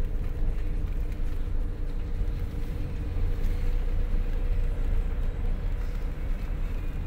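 Steady low rumble of a car in motion, with a faint even hum above it.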